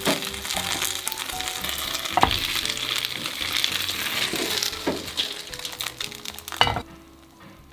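Gyoza sizzling and crackling in oil in a frying pan during the final crisping stage, with a few sharp knocks as a plate is set on the pan and the pan is lifted to flip them. The sizzle dies away suddenly near the end.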